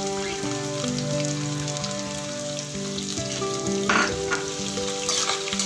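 Chopped onions sizzling as they hit hot oil in a kadai with fried green chillies and chana dal, over soft background music of held notes. A short sharp clink comes about four seconds in.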